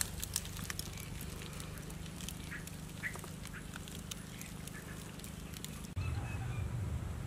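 Light crackling of embers smouldering in a clay pit oven, over a steady low rumble. A couple of short animal calls come about two and a half and three seconds in, and the low rumble grows louder near the end.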